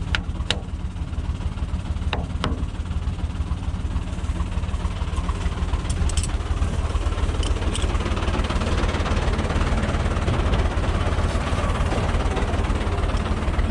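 Farm tractor engine running steadily while pulling an orchard sprayer. There are a few sharp clicks in the first few seconds, and a broad hiss grows louder in the second half.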